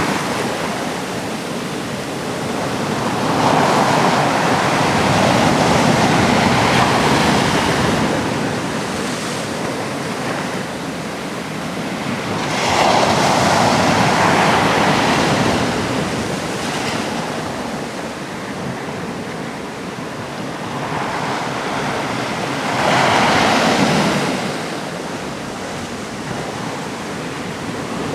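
Sea waves breaking on a rocky shore, three swells of surf about every ten seconds, each rising and falling back into a steady wash.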